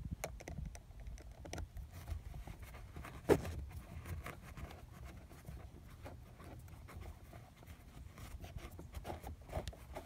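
Hand screwdriver turning a small screw into a seat trim panel: faint scratchy clicks and handling noise, with one sharper click a little over three seconds in.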